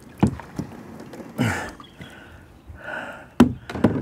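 About four hollow knocks and thumps on the plastic hull of a Kayaks2fish NEXTGEN 11.5 pedal kayak as the paddle is handled and the seated paddler shifts his weight. The sharpest two come close together about three and a half seconds in.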